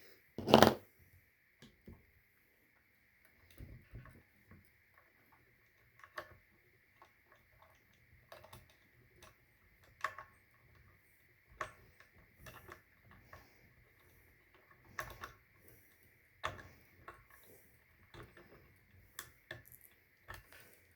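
Scattered small clicks and taps of a hex key and small metal parts being handled while fitting a Tone Vise D-tuner to an electric guitar, with one louder knock about half a second in. A faint steady high hum runs underneath.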